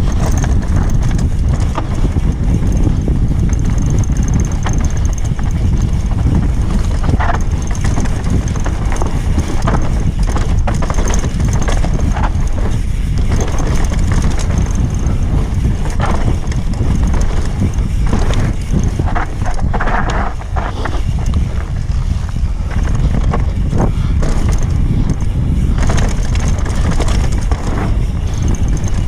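Mountain bike riding fast down a dirt singletrack: heavy wind buffeting on the camera microphone and steady tyre rumble, with scattered short clicks and rattles from the bike over the bumps.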